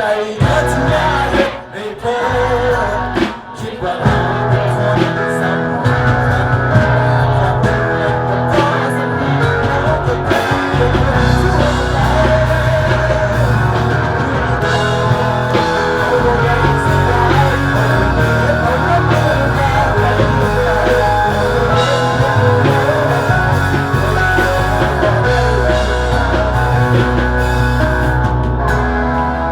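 Live rock-style band music with a strong bass line and a steady beat, briefly thinning out during the first few seconds.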